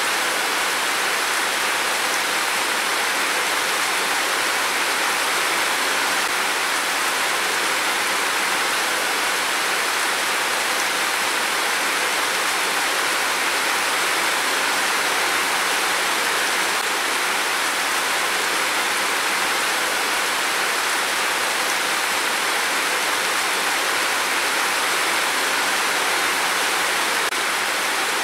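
Heavy rain pouring down, a steady even hiss that stays constant throughout.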